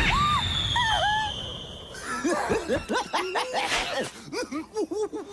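A loud rushing burst with a high whistle sliding down in pitch, then a cartoon animal character's rapid, squeaky snickering laughter.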